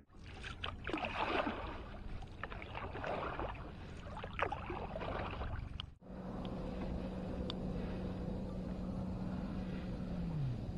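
Lake water splashing and lapping in irregular bursts. Then, after a sudden break, a steady low engine hum that drops in pitch near the end.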